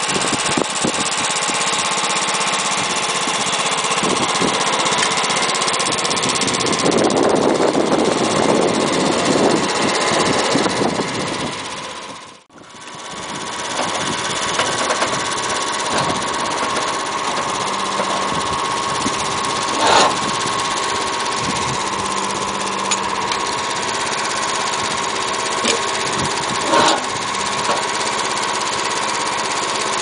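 Sawmill engine and saw running steadily, swelling louder for a few seconds. The sound drops away sharply for a moment about twelve seconds in, then carries on with two short sharp knocks later.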